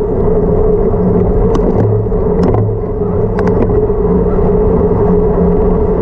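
Steady drone of a vehicle riding downhill on a mountain road, heard from a camera mounted on it, with low rumble and a few short clicks in the middle of the stretch.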